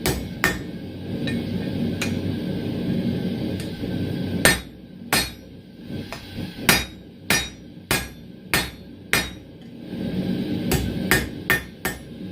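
Hand hammer striking steel tong blanks on an anvil, sharp ringing blows in bursts: two at the start, a run of about seven at a steady pace in the middle, and three quick ones near the end. The steel is being worked to define the marked-out sections of the 10 mm square tong blanks. A low steady rushing noise fills the pauses between the bursts.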